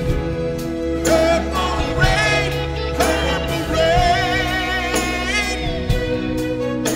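Live music: a man singing held, wavering notes into a microphone over band accompaniment with a steady bass line.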